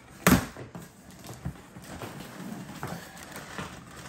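Blade slitting the packing tape along the top seam of a cardboard box: a sharp knock on the cardboard about a third of a second in, then small scraping and crinkling as the blade runs along the tape.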